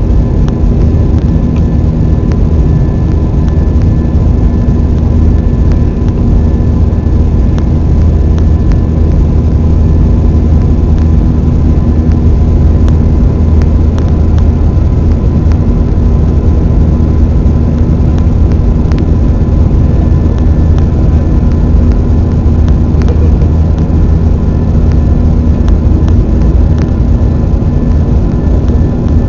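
Steady jet engine and airflow noise heard inside an Airbus A320 cabin: a constant deep rumble with a faint steady whine.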